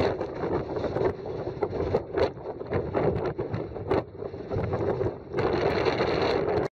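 Wind buffeting the camera's microphone: a loud, gusting rush with scattered crackles, which cuts off abruptly near the end.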